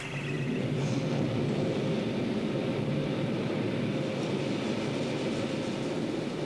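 Steady low mechanical rumble with a faint held hum, the machinery noise of an aircraft hangar in a film soundtrack, coming in just after the start.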